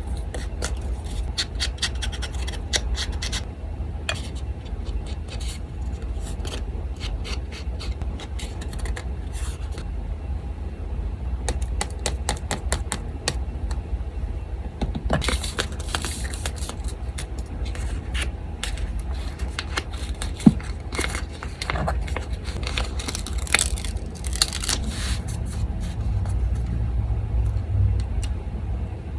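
Paper being handled, rubbed and scraped at close range, with runs of small crisp ticks and rustles, over a steady low hum from an electric fan.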